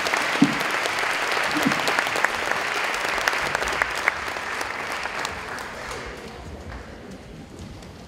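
Audience applauding, with a few sharper single claps standing out; the clapping dies away over the last few seconds.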